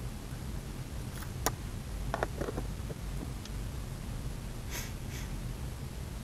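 Steady low rumble of wind buffeting the microphone. A sharp click comes about one and a half seconds in, then a few short handling knocks, and a short sniff near five seconds.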